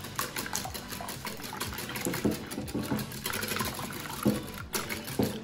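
Wire whisk beating an egg, milk and maple syrup mixture in a glass bowl: rapid liquid sloshing with quick, irregular clicks of the wires against the glass.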